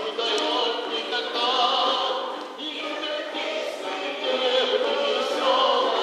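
Music with many voices singing together like a choir, in a large hall.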